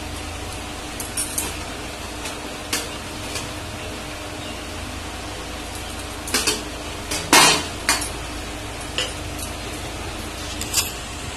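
Metal kitchen utensils clinking and knocking: a spoon against steel and aluminium pots and bowls as they are handled, with scattered sharp clinks, the loudest cluster a little past the middle, over a steady low hum.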